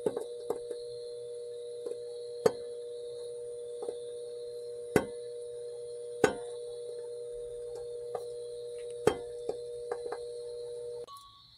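Gold powder boiling in hydrochloric acid in a glass jar: irregular sharp ticks and pops from the boiling. Under them runs a steady high-pitched electrical whine that cuts off near the end.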